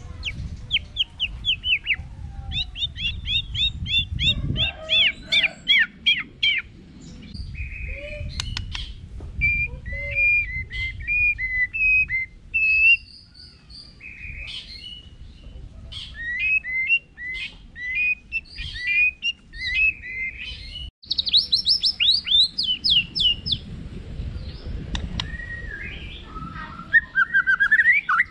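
White-rumped shama (murai batu) singing a long, varied song: quick runs of down-slurred chirps, several a second, alternating with short whistled notes and trills. A low rumble of background noise runs underneath.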